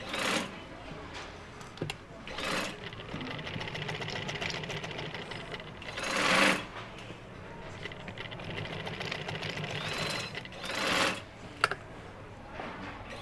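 Sewing machine stitching a seam in a steady, fast, even rattle, with the fabric rustling in short bursts as it is shifted under the presser foot, and one sharp click near the end.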